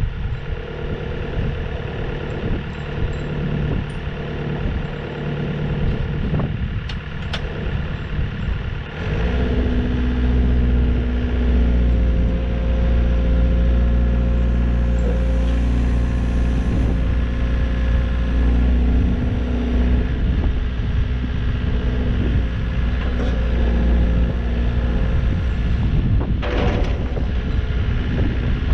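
Volvo ECR88 midi excavator's diesel engine idling, with a few light knocks. About nine seconds in it steps up to a louder, deeper working speed as the boom and arm are worked hydraulically.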